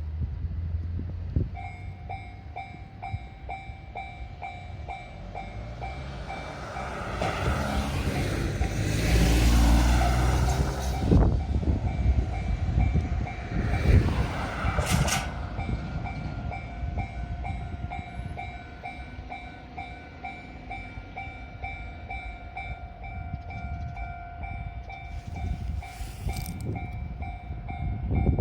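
Japanese level-crossing warning bell starting to ring about a second and a half in, a steady run of repeated electronic clangs. About six seconds in, a Fukushima Kotsu Iizaka Line electric train rumbles past, loudest around nine to ten seconds in, while the bell keeps ringing.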